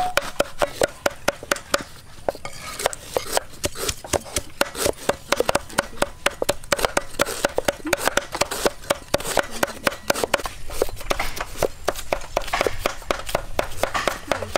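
Steel cleaver chopping through peeled wood apple fruit onto a wooden chopping board, quick steady knocks at about four a second.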